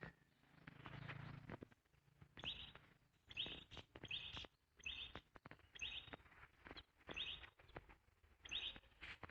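A bird calling over and over, a short buzzy call repeated about every 0.7 seconds, starting a couple of seconds in.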